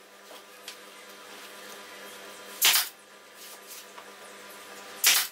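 Pneumatic brad nailer firing twice into wood, each shot a short sharp blast, the second about two and a half seconds after the first, near the end.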